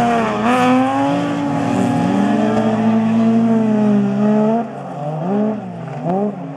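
Several rallycross cars' engines revving hard as they pass and corner, their pitch repeatedly rising and falling. Near the end it drops somewhat, with a few quick rising sweeps as cars accelerate away.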